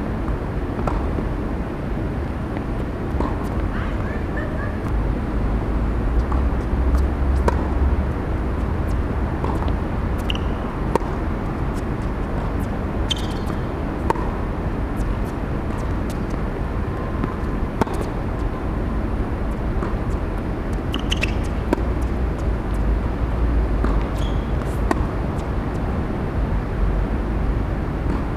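Tennis rally on an outdoor hard court: racket strikes on the ball come as sharp, isolated pops at irregular intervals, with a few short high squeaks in between. A steady low rumble underlies everything and swells twice.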